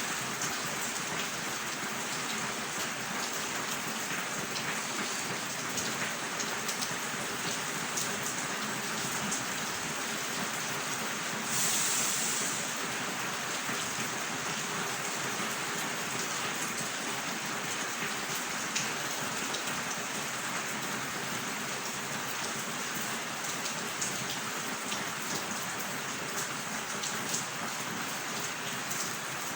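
Steady rain falling, an even hiss with single close drops ticking now and then. About twelve seconds in, the hiss briefly swells louder for about a second.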